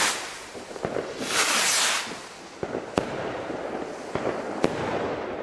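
Nico Starburst Symphony rockets, two Blast rockets and a Flash: rushing hisses as they climb, then sharp bangs as they burst, the loudest about three seconds in and again near five seconds, with a few smaller cracks between.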